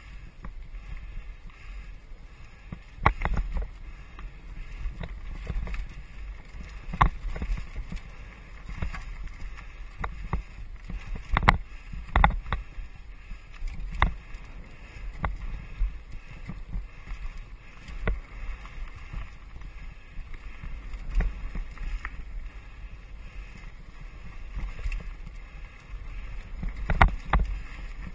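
Mountain bike riding fast down dirt singletrack. A steady low rumble of wind and tyre noise runs through it, with irregular sharp clunks and rattles from the bike as it hits bumps and roots.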